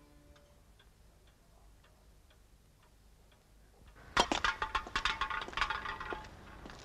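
A clock ticking faintly, about twice a second. About four seconds in, a metal can is kicked and clatters along the pavement with a quick run of ringing tinny knocks lasting about two seconds.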